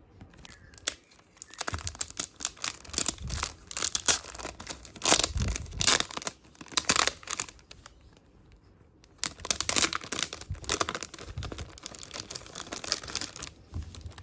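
Packaging wrapper being torn open and crinkled by hand, in two long spells of dense crackling with a short lull between.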